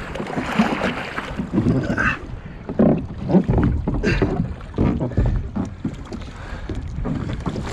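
Water splashing and sloshing around a kayak in irregular bursts, with wind rumbling on the microphone.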